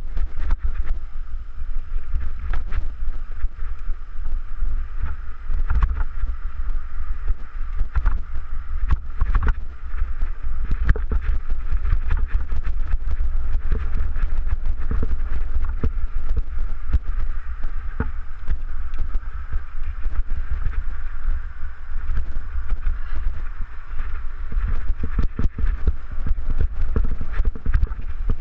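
Mountain bike descending a rocky dirt trail: a continuous low rumble of wind buffeting the microphone, with frequent clatters and knocks as the bike rolls over rocks and ruts.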